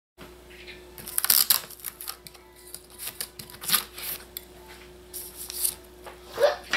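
Stainless steel grill utensils clinking against each other and against the metal case as they are handled and slotted back into place, an irregular run of sharp metallic clicks and clinks.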